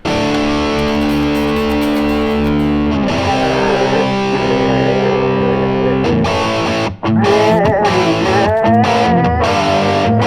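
Rock music led by distorted electric guitar. Held chords change twice, and after a brief break about seven seconds in, a wavering melody line plays over them.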